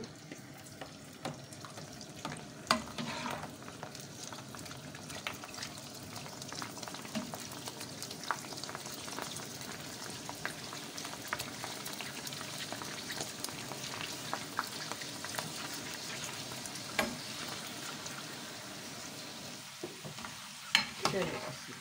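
Golgappa (pani puri) shells deep-frying in hot oil: a steady sizzle full of small crackles. A slotted metal spoon stirs and turns them, with a few sharper knocks, near the start, late on and about a second before the end.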